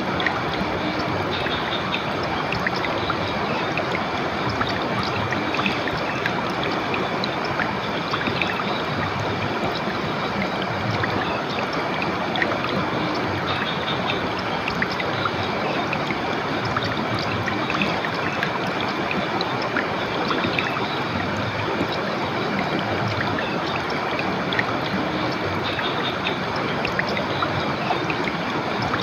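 River water flowing, a steady even rush with a faint high tone running through it.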